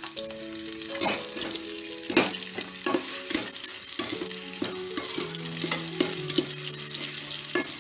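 Sliced onions and whole spices sizzling in hot oil in a steel pot while being stirred, with a steel spoon scraping and knocking against the pot several times.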